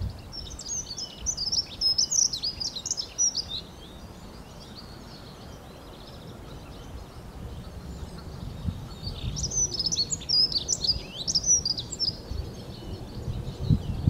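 Dunnock singing: two quick, high, jumbled warbling phrases of about three seconds each, the first right at the start and the second about eight seconds in.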